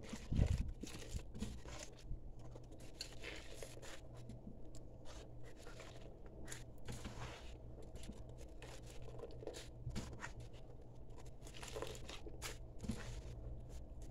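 Kitchen sponge being rubbed and squeezed in a pot of soapy water with pieces of homemade bar soap, making irregular wet scrubbing and swishing noises as the soap lathers into foam. A dull bump about half a second in.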